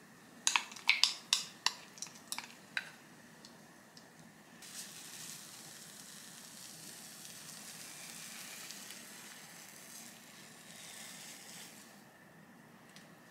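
A quick run of sharp clicks and taps, about ten in the first three seconds, as a utensil works food on a plate. Then a steady sizzle of scrambled eggs in a hot frying pan, lasting about seven seconds before fading.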